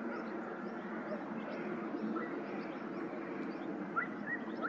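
Small birds chirping over a steady outdoor background noise: short, high chirps repeat a few times a second, and a few louder chirps come near the end.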